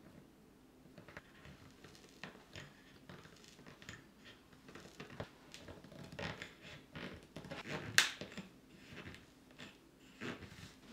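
A painted wooden peg rail and a spirit level handled against a board wall: scattered light scrapes, taps and rustles, with one sharp click about eight seconds in.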